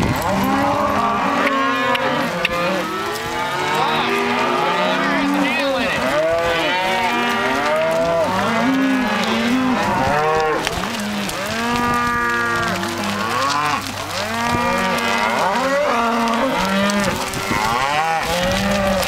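A herd of cattle mooing and bawling, many calls overlapping one after another without a break.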